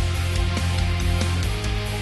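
Background music with a heavy bass and a steady beat.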